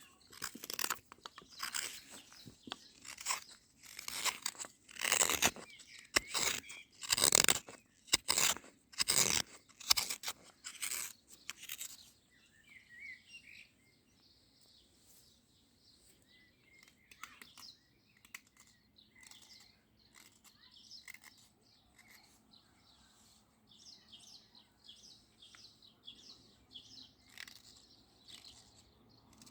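Olive wood being shaved by hand with a blade in repeated strokes, about one a second, during the first twelve seconds. After that it goes quieter and birds chirp on and off.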